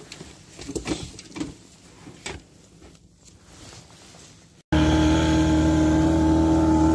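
Soft rustling and small clicks of clothing and reed stems brushing as a hunter moves through tall reeds. About two-thirds of the way in, the sound cuts abruptly to a small boat's motor running loud and steady at an even pitch.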